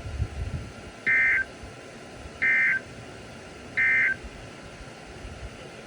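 Emergency Alert System end-of-message data tones on a NOAA Weather Radio broadcast: three short two-tone bursts, about 1.3 seconds apart, over steady radio hiss. They signal the end of the warning message.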